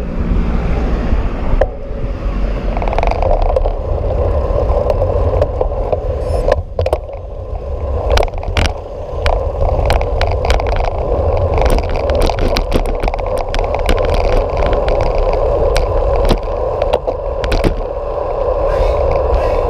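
Riding noise from a bicycle-mounted action camera: wind buffeting the microphone and tyres rolling on tarmac. Scattered clicks and rattles run throughout and come thick and fast in the second half.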